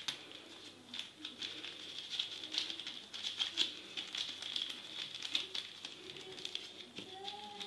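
Hands rubbing and tossing dry flour, ground almonds and sesame seeds in a clay bowl, a soft run of small scattered ticks and rustles, with the crinkle of a paper sachet being handled.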